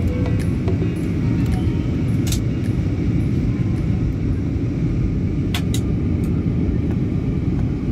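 Jet airliner cabin noise: a steady low rumble of engines and airflow heard from a window seat during descent, with a few faint clicks.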